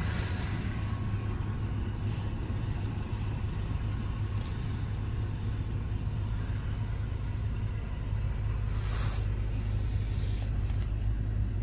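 2013 Ford F-250 Super Duty running with its 6.2 L gas V8, heard from inside the cab as a steady low rumble.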